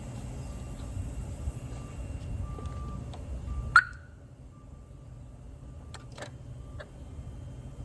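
A car's warning chime beeping steadily at one pitch, about once every 0.7 seconds, inside the 2011 Hyundai Veracruz just before a cold start. Roughly halfway through a single sharp clunk sounds, after which the background quietens and the chime goes on more faintly, with a few light clicks near the end.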